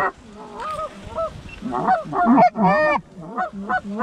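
Canada goose honks and clucks, many short calls close together and overlapping, loudest and densest about two to three seconds in, then coming at about three a second.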